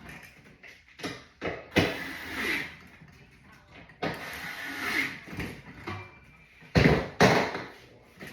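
Irregular knocks, bumps and scraping of furniture parts being handled, with the loudest pair of thuds about seven seconds in.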